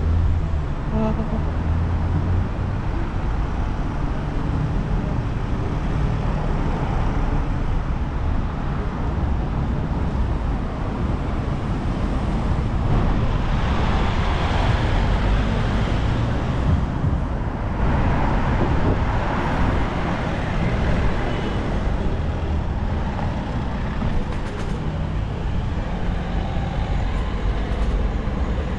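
Road traffic on a city street: cars and vans driving past, engines and tyres giving a steady rumble that swells a couple of times about halfway through as vehicles pass.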